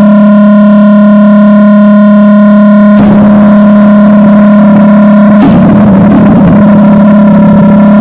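Loud, distorted electronic drone holding one steady low pitch with fixed overtones. It turns abruptly rougher and noisier about three seconds in, and again about five and a half seconds in.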